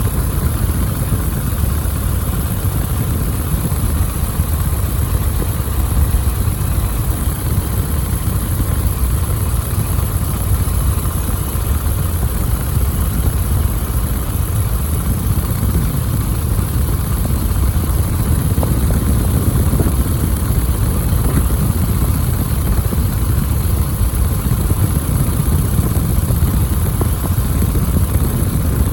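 A biplane's piston engine and propeller running steadily and loudly, heard from inside the aircraft.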